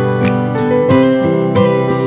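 Background music of plucked acoustic guitar, with a new note or chord about every half second.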